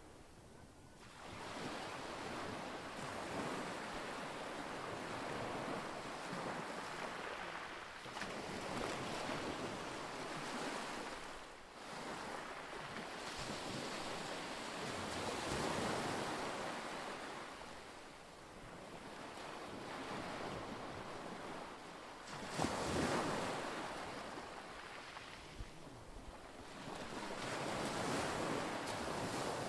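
Wind and lake water lapping at the shore, swelling and easing every few seconds, with wind buffeting the microphone. A brief knock about two-thirds of the way through.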